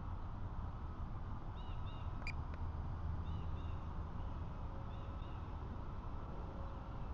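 Wind rumbling on the microphone, with a bird calling in short paired high chirps several times and one sharp click a little over two seconds in.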